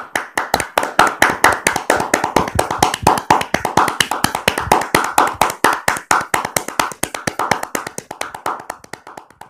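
Hands clapping quickly and unevenly, like a small group applauding, tapering off near the end.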